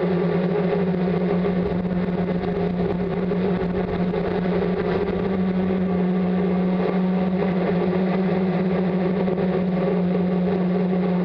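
Multirotor's brushless motors and propellers humming steadily, picked up by a camera mounted on the craft itself: one strong, even drone with its overtones and almost no change in pitch.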